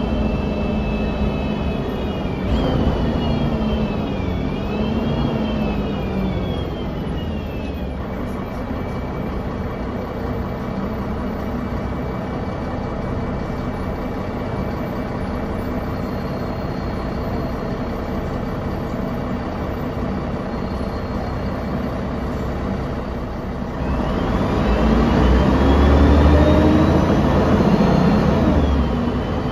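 Interior sound of a 1999 Mercedes-Benz O405NH bus under way, its engine and drivetrain running. A whine rises and falls through the first few seconds as the bus gets going and changes gear, steadies through the middle, then climbs again with a louder engine as the bus accelerates near the end.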